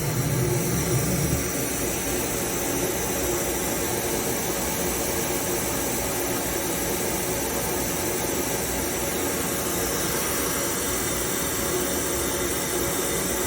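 Steady mechanical hum and hiss of a Citizen A20 Swiss-type CNC lathe going into shutdown, a low hum fading out within the first second or two and the hiss carrying on evenly.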